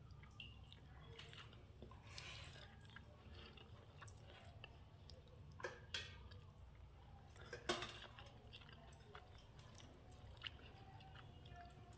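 Quiet wet chewing and squishing of food as pakhala, rice soaked in water, is eaten, with a few sharper clicks about six and eight seconds in.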